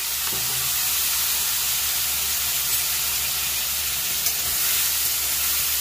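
Turmeric-and-salt-coated prawns sizzling steadily in hot oil in a kadhai over a high flame, just after going into the pan.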